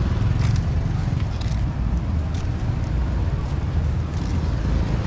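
Steady low rumble of outdoor street background noise, with a few faint clicks scattered through it.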